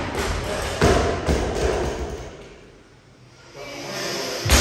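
Barbell bumper plates thudding on a rubber gym floor as loaded bars are set down between deadlift reps: a couple of knocks about a second in and a sharper thud near the end.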